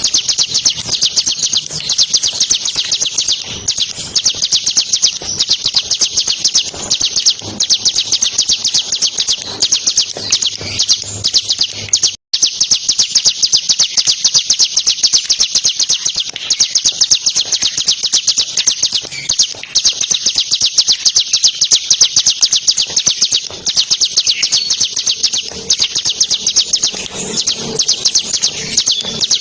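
Bar-winged prinia (ciblek) singing without pause, a fast drilling run of high notes. The song breaks off for a split second about twelve seconds in.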